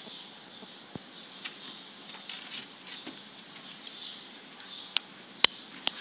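Dwarf rabbit kits nibbling and rustling hay, soft crackling with a few sharp clicks scattered through, the loudest a little before the end.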